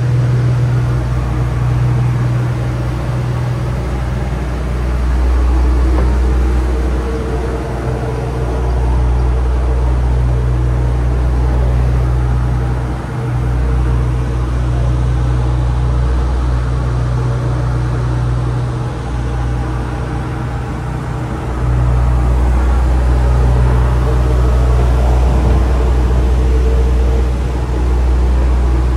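Steady low drone of the cruise ship's engines, a deep hum with a noisy rush over it, which dips briefly twice.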